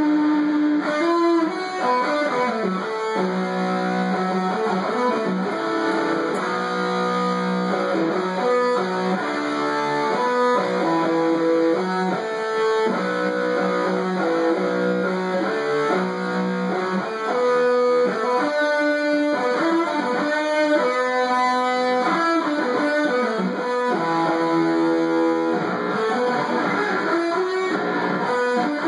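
Red SG-style solid-body electric guitar played as a lead line: a run of single notes stepping up and down every fraction of a second, with some notes held briefly.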